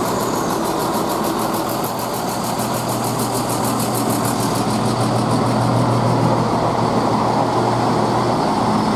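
Chiltern Railways Class 168 diesel multiple unit standing at the platform with its underfloor diesel engines idling, a steady low hum.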